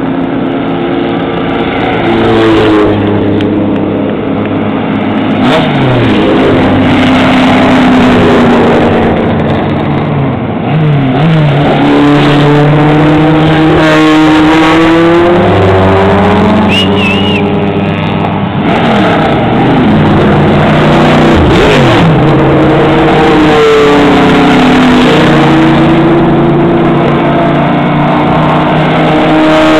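Vintage race car engines passing close by one after another, each engine note rising and falling in pitch as the car approaches and goes past.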